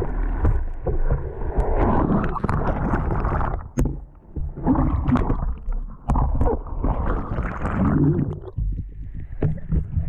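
Water sloshing and gurgling over an action camera's waterproof housing as a kayak goes through foaming surf, in irregular swells with a heavy low rumble and scattered knocks, dropping away near the end.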